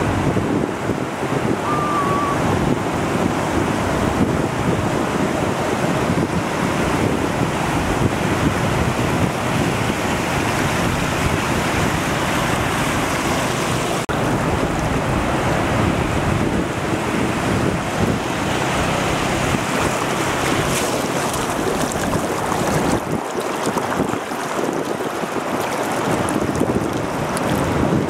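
Sea surf breaking and washing in the shallows, a steady rushing roar, with wind buffeting the microphone.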